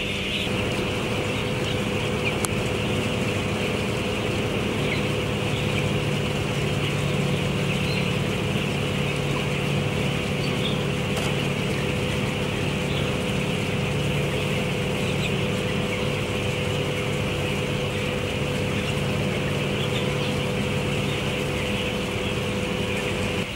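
Steady machinery hum in a broiler house, with a continuous chorus of high cheeping from a flock of three-week-old broiler chicks.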